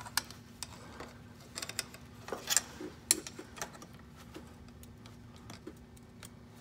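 Scattered light metallic clicks and scrapes of a hook-type seal puller catching and prying at the leaking input seal around the splined input shaft of a truck's power divider. A faint steady hum runs underneath.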